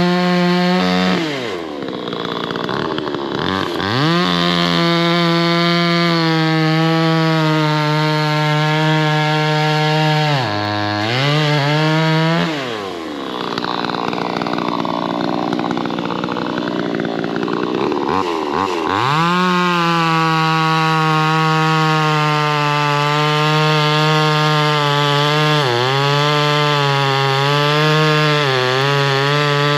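VEVOR 58cc two-stroke gas chainsaw running at high revs and cutting wood. Its engine note sags in pitch each time the chain bites and climbs back as it frees, with the longest cut about halfway through and a few short dips near the end.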